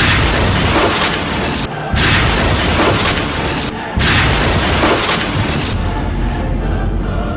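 Explosion blast in Lebanon, a loud noisy roar heard three times in quick succession, each about two seconds long and cut off abruptly, as the same clip is replayed. Music continues underneath.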